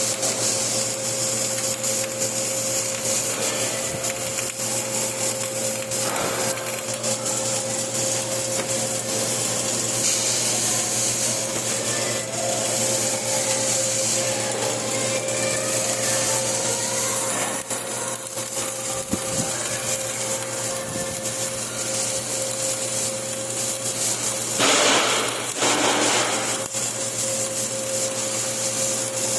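Flux-cored arc welding: a steady crackling, hissing arc over a constant hum from the welding machine, with a louder hiss for about a second and a half near the end.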